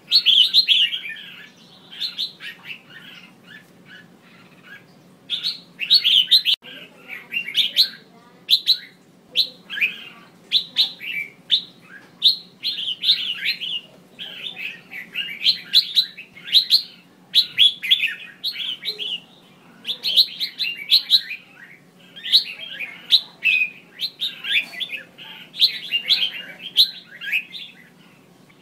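Female red-whiskered bulbul calling, the kind of call played to stir males into song: quick bursts of short high notes, repeated over and over with brief pauses.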